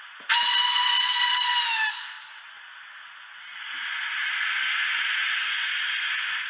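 Hornby TTS sound decoder in a model GWR Castle Class steam locomotive playing a steam whistle for about a second and a half, dipping slightly in pitch as it cuts off. This is followed by a steady steam hiss that swells up from about three and a half seconds in.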